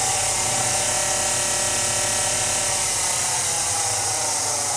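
Gettys spindle motor and belt drive of an Acroloc M10 CNC lathe running at speed under the Mach3 step-and-direction speed control. It makes a steady multi-toned whine, edging slightly up in pitch, over a loud hiss.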